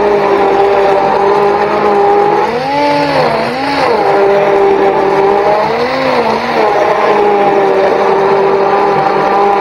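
Hand-held immersion blender running steadily in a stainless steel bowl, blending eggs with ground hemp seed and spices; its motor whine dips in pitch and recovers twice, about three and six seconds in.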